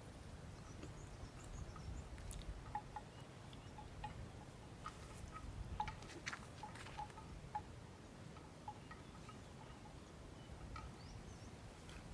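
Faint, irregular tinkling of a small animal bell, a few separate notes at a time, over a low rumble.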